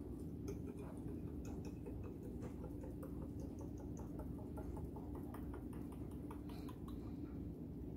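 Faint small clicks and taps as glass oil bottles and a metal pour spout are handled, with the spout being pushed into the neck of a glass cruet, over a steady low hum.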